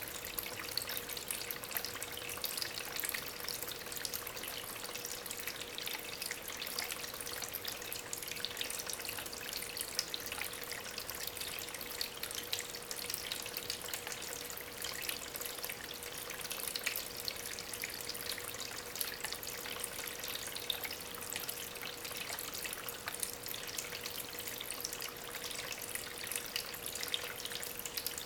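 Water trickling and splashing steadily over the stones of a small homemade tabletop waterfall, fed by an aquarium pump. A faint steady tone runs underneath.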